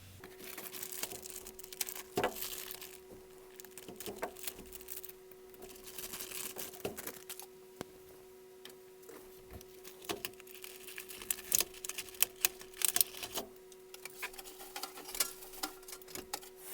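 Model kit parts and their packaging being handled and unwrapped: irregular clicks, taps and crinkling of plastic and cardboard, with a faint steady hum underneath.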